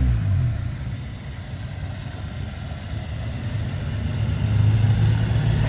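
Car engine running with a deep low rumble. It drops away over the first second, then slowly builds back up toward the end.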